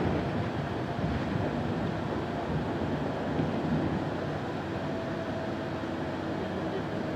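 Interior ride noise of a moving Solaris Urbino 18 articulated city bus: a steady rumble of engine and tyres heard from a passenger seat, with a faint steady whine coming in about two-thirds of the way through.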